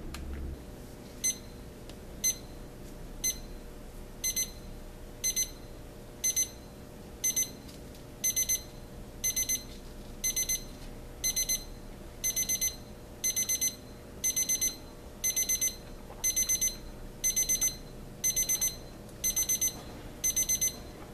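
First Alert SFA2700 alarm clock's electronic alarm beeping, a group of high-pitched beeps each second. It starts as single beeps and escalates to double beeps, then to faster groups of three or more.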